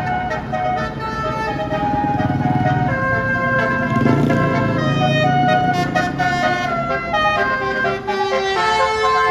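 A bus's 'telolet' Basuri multi-tone horn playing a tune, several notes sounding together and changing step by step, over the low rumble of the bus's engine.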